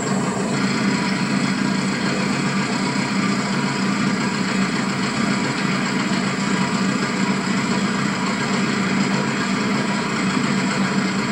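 An engine running steadily at an even speed, a constant hum with evenly spaced overtones.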